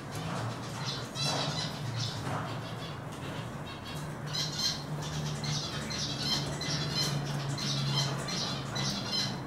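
Male Eurasian siskin singing: short bursts of rapid, high twittering notes repeated one after another from about a second in.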